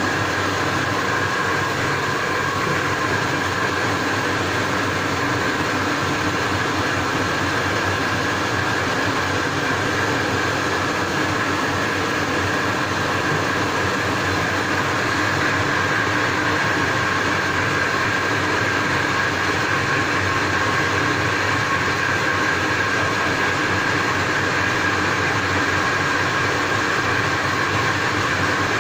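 Steady machine drone: an even rushing noise with a few held tones in it, unchanging in level.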